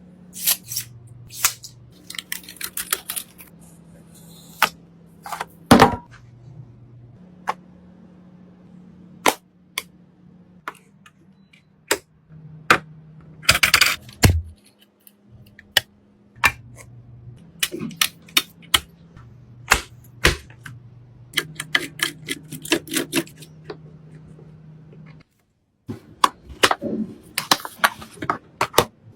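A long string of sharp clicks, snaps and taps of PC components being handled and fitted together, over a low steady hum that shifts pitch several times.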